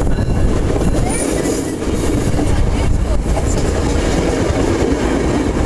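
Tri-Rail commuter train's coaches rolling past close by: a steady loud rumble of wheels on rail with scattered clicks as the wheels cross rail joints.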